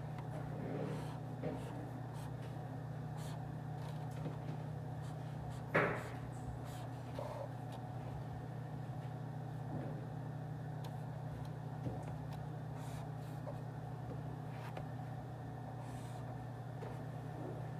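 Office ambience: a steady low ventilation-like hum with scattered small clicks and taps, and one louder knock about six seconds in.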